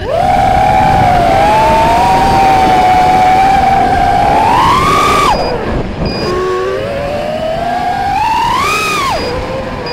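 FPV drone's brushless motors and propellers whining through the onboard camera's microphone. The pitch climbs with throttle to a peak about five seconds in, drops sharply, then climbs again to a second peak near the end before falling away. Faint short beeps come in the dip between the two.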